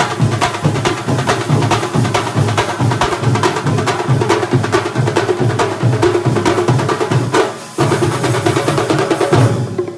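Percussion music: fast, even drum strokes over a held tone, breaking off briefly about three-quarters of the way through.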